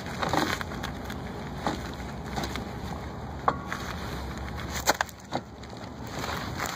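Scattered knocks and clicks as a snowmobile drive belt is worked by hand off the primary clutch, which is turned to help the belt come free.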